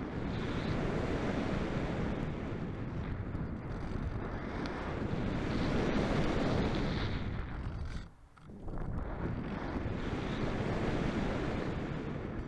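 Airflow rushing over the onboard camera of a model aircraft in flight: a steady wind noise that swells and eases, with a brief drop about eight seconds in.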